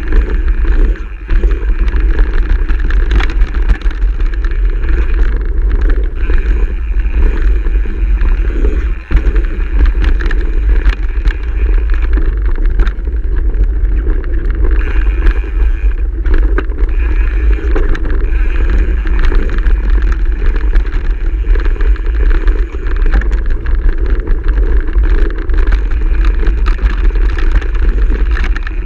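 Mountain bike ridden down a rocky gravel trail: steady wind buffeting and rumble on the chest-mounted camera's microphone, with tyre noise and frequent clicks and rattles from the bike over stones.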